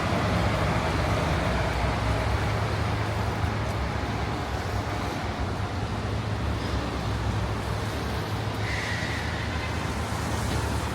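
Street traffic: a steady rumble of vehicles running, with a constant low engine hum. A short faint high tone comes about nine seconds in.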